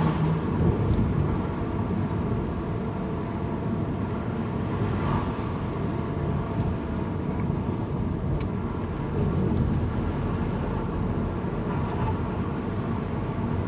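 Steady engine and road noise heard inside a moving car's cabin.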